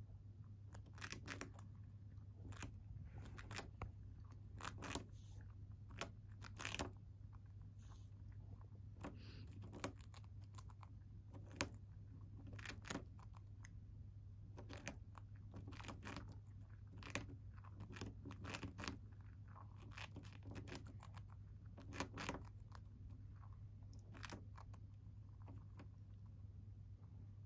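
Long-haired hamster gnawing a crumbly piece of food: small sharp crunches at an irregular pace, about one every second or so, over a steady low hum.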